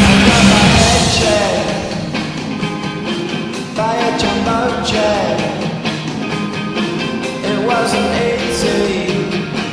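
Rock goal song with a singer over a full band, played as part of a hockey team's goal-horn sequence. It is loudest in the first second, then settles slightly lower.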